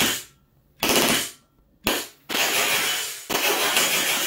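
Airsoft Glock 35 gas blowback pistol firing short full-auto bursts, its slide cycling in a rapid rattle. The bursts come about a second apart, and the last two run longer.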